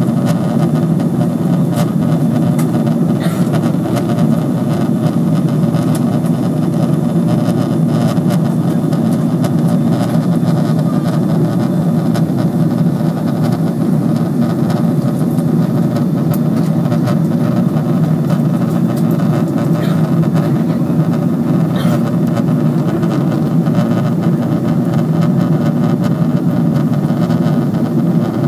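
Steady drone of an airliner cabin in flight: jet engines and rushing airflow, heard from inside the cabin, with a few faint ticks.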